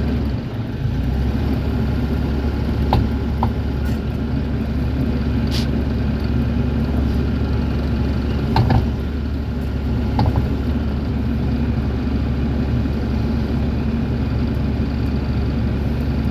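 Bobcat E42 mini excavator's diesel engine running steadily, with a few short knocks and clanks.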